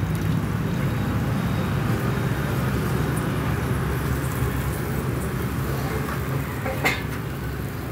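Steady low rumble of background road traffic, with one sharp click about seven seconds in.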